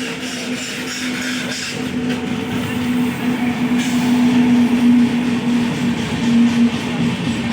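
Express passenger train approaching and running into a station: a steady rumble with a constant low hum throughout.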